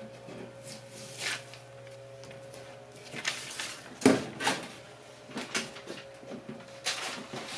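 Scattered rustles and scrapes of parts and tools being handled on a work surface, with one sharp knock about four seconds in, over a faint steady hum.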